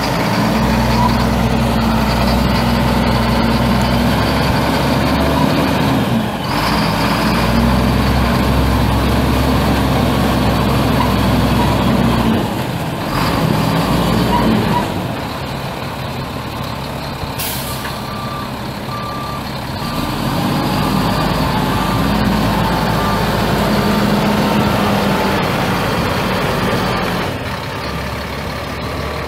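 Dump truck's Caterpillar 3126 inline-six turbo diesel running, its pitch rising and falling as it is driven, with a few short hisses of air from the air brakes. In the second half a backup alarm beeps steadily as the truck reverses.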